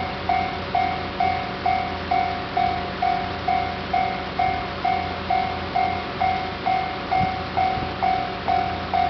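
Japanese railway level-crossing warning bell ringing its steady repeated 'kan-kan' ding, about two strokes a second, each stroke fading quickly.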